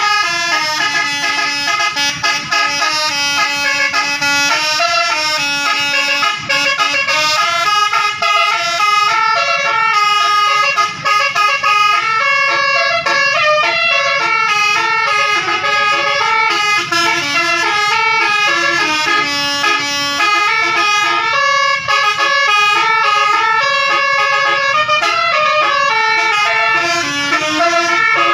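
A tour bus's Basuri telolet horn playing a continuous melody, its notes stepping up and down several times a second.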